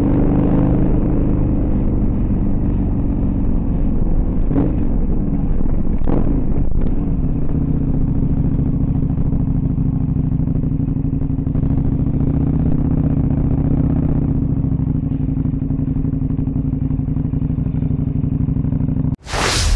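KTM dual-sport motorcycle engine running at a steady, even pitch, with a couple of knocks about four and six seconds in. Near the end it cuts off and a whoosh sweeps through.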